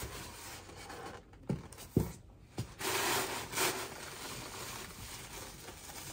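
Handling noise from unpacking: three soft knocks about one and a half to two and a half seconds in, then a brief burst of rustling packing material, settling into quieter rubbing.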